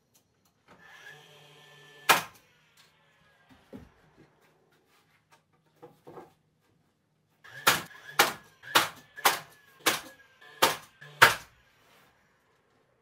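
Battery-powered DeWalt finish nailer firing nails into wood framing. Its motor whirs briefly before one sharp shot about two seconds in. Later it whirs again and fires seven quick shots, roughly two a second.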